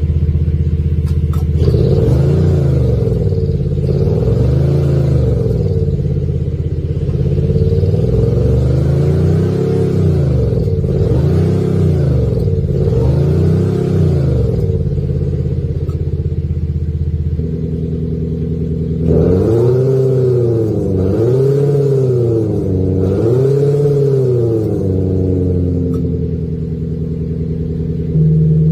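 Mercedes E450 coupe with an active sound generator (virtual exhaust) playing a synthetic SLS AMG-style exhaust note through the car. A steady idle is broken by a run of quick throttle blips, each rising and falling, about one every second and a half. After a few seconds of idle come four more blips, then idle again.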